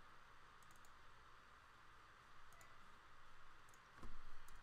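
A few faint computer mouse clicks over a steady background hiss, with a soft low thump about four seconds in.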